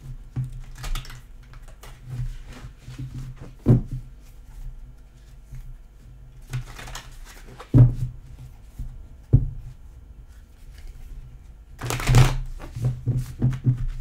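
A tarot deck being riffle-shuffled by hand, with three short rippling bursts of cards and a few sharp knocks in between.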